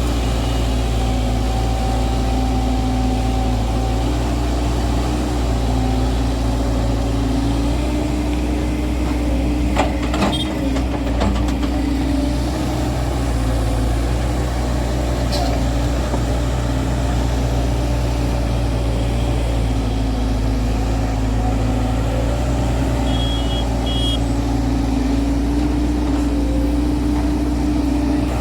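JCB JS140 tracked excavator's diesel engine running steadily under working load, its pitch shifting slightly as the hydraulics work, with a couple of sharp knocks about ten seconds in.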